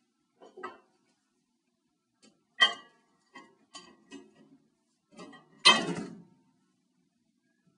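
A run of separate clicks and knocks of objects being handled, with two louder knocks: one about two and a half seconds in, and a longer, clattering one at about five and a half seconds.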